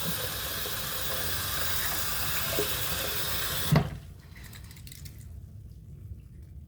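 Tap water running steadily into a sink, then a knock nearly four seconds in as the faucet is shut off and the flow stops abruptly.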